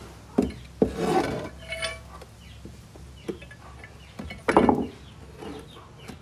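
A heavy iron lathe part being turned over and set down on a wooden pallet: several knocks and scrapes of metal on wood, with a brief ringing metal clink about two seconds in.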